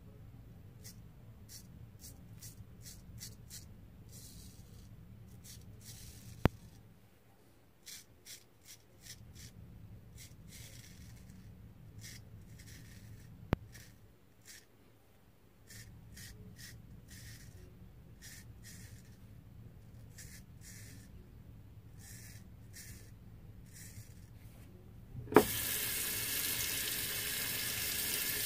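Straight razor scraping through lathered stubble in many short strokes, with two sharp clicks along the way. About 25 seconds in, a tap is turned on and water runs into a sink, louder than the shaving.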